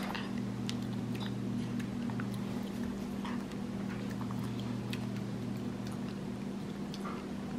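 Capuchin monkey licking and smacking applesauce from a bowl: scattered small wet clicks and smacks, over a steady low electrical hum.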